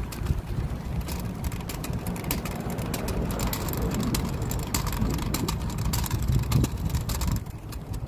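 Wind buffeting the microphone on a moving hybrid bicycle, a steady low rumble. Over it comes a run of quick, irregular clicks and rattles from the bike, which thin out near the end.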